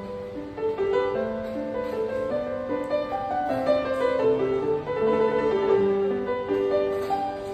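Solo piano playing a melody, its notes held and ringing over one another.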